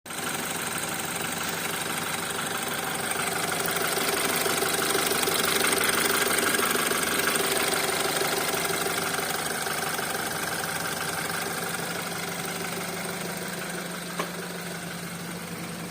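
BMW N20B20 2.0-litre turbocharged four-cylinder idling about a minute and a half after start, with an engine knock whose cause is not yet known. One sharper click is heard near the end.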